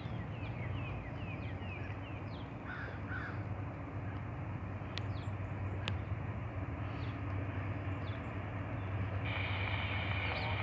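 Birds calling with many short, downward-sliding chirps over the low, steady rumble of an approaching Norfolk Southern freight train's diesel locomotives. About nine seconds in, a steady high tone begins.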